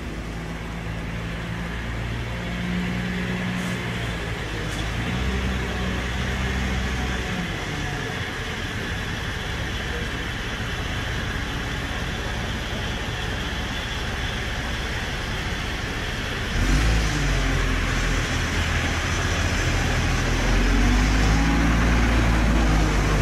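Steady vehicle engine and traffic noise with a low rumble, which gets louder and deeper about two-thirds of the way through.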